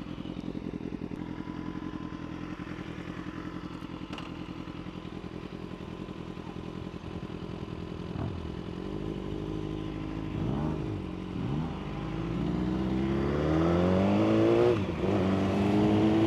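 BMW S1000RR's inline-four engine idling steadily just after start-up, then from about twelve seconds in its note climbs and gets louder as the bike pulls away, with a brief dip near the end before it climbs again.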